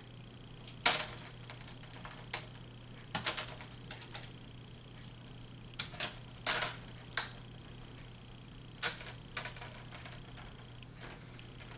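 Irregular sharp plastic clicks and snaps, about a dozen, as a laptop's screen parts are handled and pressed together by hand. The loudest comes about a second in and a cluster follows around six to nine seconds in. A faint steady high whine and low hum run underneath.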